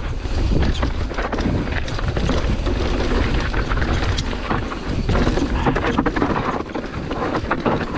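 Mountain bike descending a rocky downhill track at speed: wind buffeting the microphone, tyres rumbling over rock and gravel, and a constant rattle of clicks and knocks from the bike over the bumps.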